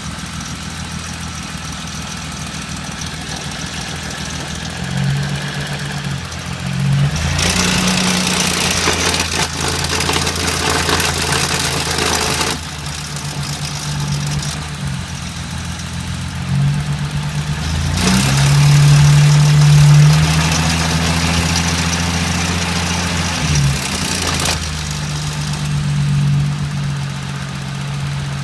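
BMW E30's S52 straight-six engine running, settling at idle between two spells of several seconds each where the engine is brought up and held, with a loud rushing noise over the engine hum. It makes the noise the owner calls horrible.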